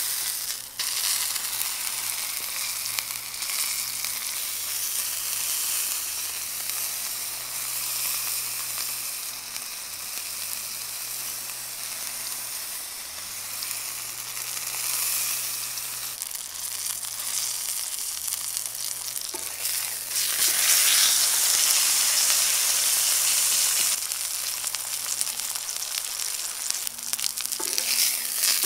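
Ribeye steak sizzling in hot oil in a pan, stood on its edge and held against a wooden spatula to sear the side. It is a steady crackling sizzle that grows louder about two-thirds of the way through.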